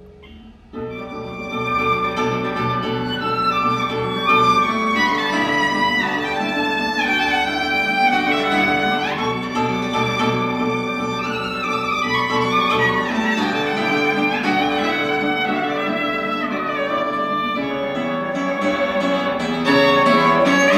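Violin and classical guitar playing a duet: the violin carries a sliding, singing melody over plucked guitar accompaniment. The music swells up from a soft moment about a second in.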